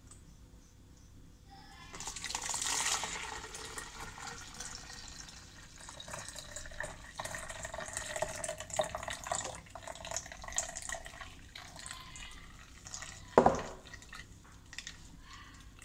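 Blended apple juice poured from a blender jar through a fine mesh strainer into a plastic pitcher, splashing and trickling from about two seconds in. A single sharp knock near the end.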